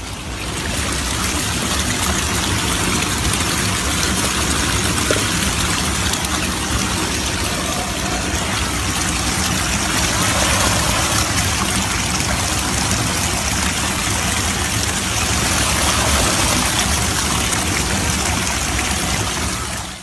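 River Lugg water rushing and splashing over mossy rocks, heard with the phone held right over the surface: a loud, steady rush of noise.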